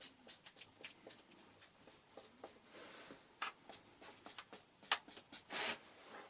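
A series of faint, short scratching and tapping strokes at an irregular pace, a few a second, with a few louder ones near the end, like light handling or marking by hand in a small room.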